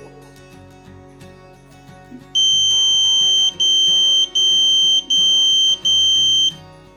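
Electronic buzzer driven by a 555 timer in an astable circuit, giving a loud, steady high-pitched tone while the panic switch is pressed. The tone starts about two and a half seconds in, sounds in five stretches split by very short breaks, and cuts off near the end, with quiet background music underneath.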